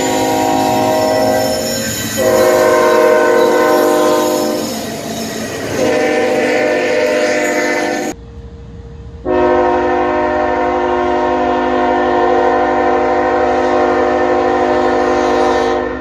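Third-generation Nathan K5HL five-chime locomotive air horn sounding its chord: several blasts in a row, then after a short gap about eight seconds in, one long steady blast.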